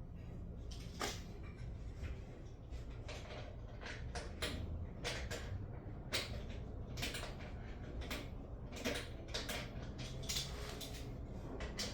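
Irregular clicks, knocks and scrapes of a bolt and hand tools being worked against the metal parts of a lawnmower, over a low steady hum.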